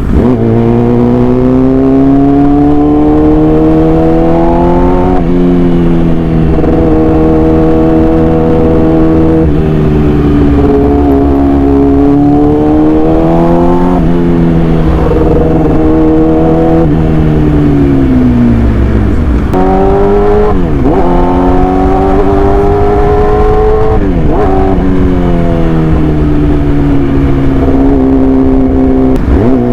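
Yamaha R6 inline-four sport bike engine with an SC Project aftermarket exhaust, running loud. The pitch climbs and falls in long sweeps every few seconds, with several sudden sharp dips and recoveries.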